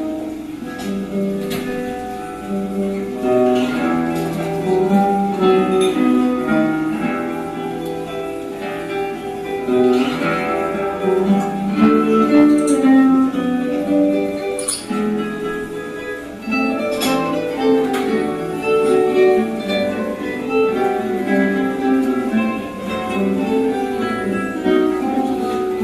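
Guitar quartet playing an ensemble piece, several plucked guitar parts interweaving in melody and accompaniment.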